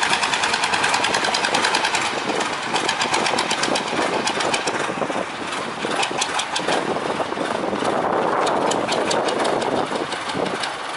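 Inboard engine of a wooden river boat running, with a rapid, even knocking beat, its cooling water spouting from the hull.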